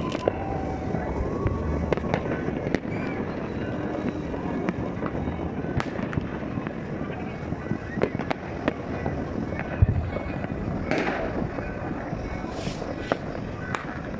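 Many fireworks going off at once: irregular sharp bangs and cracks over a constant background of distant explosions.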